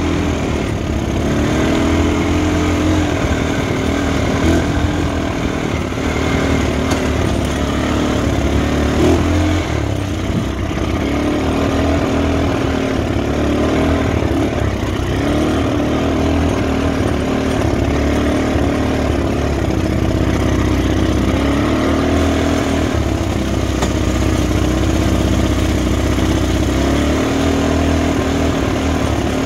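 Off-road buggy engine running over rough dirt track, its pitch rising and falling again and again as it speeds up and eases off.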